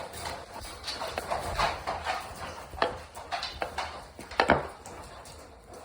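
Seven-week-old bully puppy gnawing a raw knuckle bone: irregular clicks and scrapes of teeth on bone, with the sharpest crunch about four and a half seconds in.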